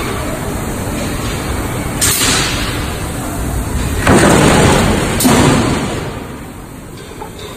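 Heavy impact-bonding press for pot bottoms running with a steady mechanical rumble. About four seconds in it strikes with a heavy thud lasting about a second, followed at once by a second, shorter surge, as it presses the bonding disc onto the pot's base. A brief hiss comes about two seconds in.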